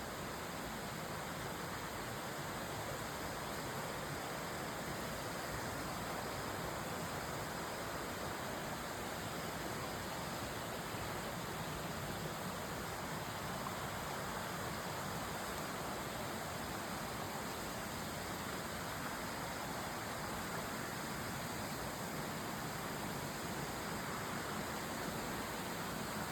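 A clear forest stream flowing, a steady rush of water.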